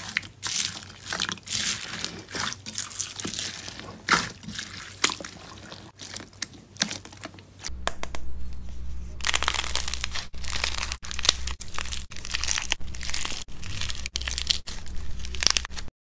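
Hands squishing slime, with dense crunching and crackling: first a purple slime mixed with white foam beads being squeezed, then after a cut a thick green slime being pressed and poked, its sticky crackles over a steady low hum. The sound stops abruptly near the end.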